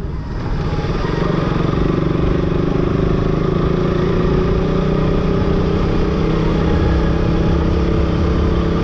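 Motorcycle engine running at a steady pitch over a constant hiss of wind and road noise.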